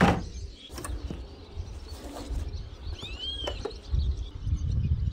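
A plastic cooler is set down on the ground with a thud, and a second, smaller knock follows just under a second later, over a low rumble. About three seconds in, a bird gives one short call that rises and then falls.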